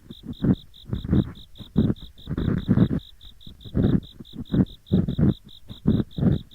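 Ear pick scraping close to the microphone in rough, crunchy 'gori-gori' strokes, on both ears at once, one or two strokes a second. Under it, insects chirp steadily, about five short high chirps a second, in the manner of crickets.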